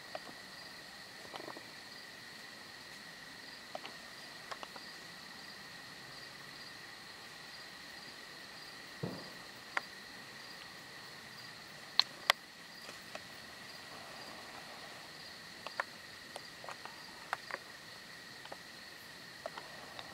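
Insects trilling steadily: a continuous high buzz with a higher, regularly pulsing chirp over it. Scattered small clicks are heard throughout, the sharpest pair about twelve seconds in.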